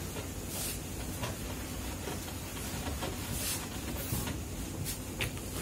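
Whiteboard eraser wiping the board clean in repeated strokes, each a short soft swish, over a steady low hum.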